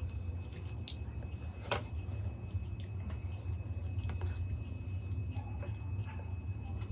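Metal spoon clicking and scraping in a plastic tub of yogurt-topped raj kachori as a spoonful is scooped up, with soft wet chewing, over a steady low hum; one sharper click comes about two seconds in.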